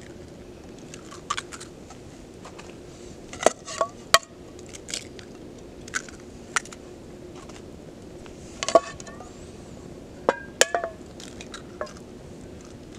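Scattered sharp clinks and knocks of a metal skillet and utensils being handled on a wood-burning camp stove while eggs are put on to cook, some strikes ringing briefly. A faint steady hum runs underneath.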